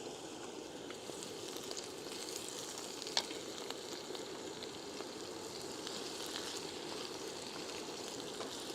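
Boiled potatoes frying in hot oil: a steady sizzle and crackle, with one sharp click about three seconds in.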